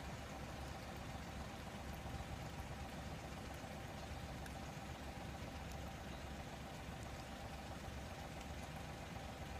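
A steady low mechanical hum with a faint constant whine runs under faint, scattered clicks of a tanuki (Japanese raccoon dog) chewing wet food.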